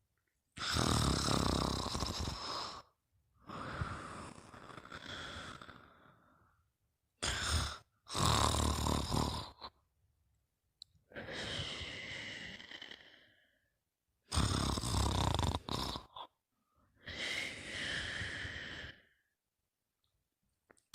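A sleeper snoring: a loud snore about every seven seconds, each followed by a softer, breathy out-breath, with short silent pauses between.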